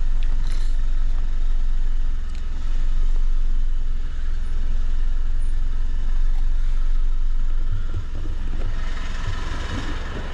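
Car engine running, heard from inside the cabin as a steady low rumble with road noise over it. About nine seconds in, a brighter hiss joins it.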